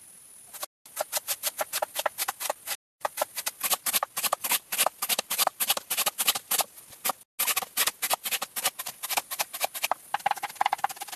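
Rapid, even tapping or knocking, about seven sharp strikes a second, in several short runs cut together with brief silent breaks.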